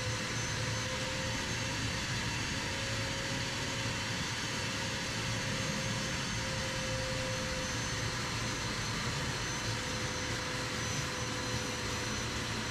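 Wet/dry vacuum running steadily with a whining motor, its hose nozzle sucking water out of a steel boat's bilge.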